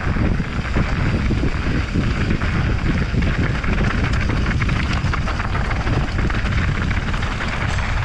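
Wind rushing over a mountain biker's camera microphone at speed, with the bike rattling and clattering over a rough downhill trail.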